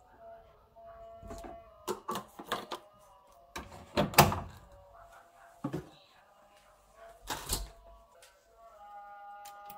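Soft background music over a series of knocks and plastic clatters from a detergent bottle and the detergent drawer of a front-loading washing machine. The loudest thump, about four seconds in, is the drawer being pushed shut, and a few lighter knocks follow.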